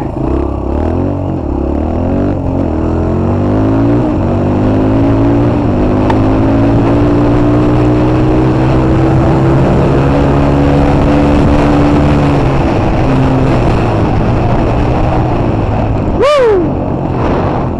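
Dirt bike engine pulling across rough ground, its pitch climbing slowly as it gathers speed, then easing off about twelve seconds in. Near the end a sharp knock comes with a quick falling whine.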